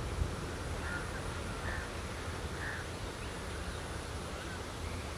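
Open-air ambience: a steady low rumble and hiss, with three short bird calls about one, two and almost three seconds in.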